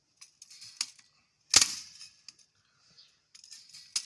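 A series of sharp, light clicks, with one loud snap about a second and a half in and a quick run of clicks near the end.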